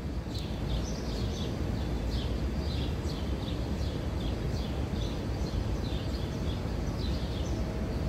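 Small wild birds chirping, many short falling notes a few times a second, over a steady low background rumble.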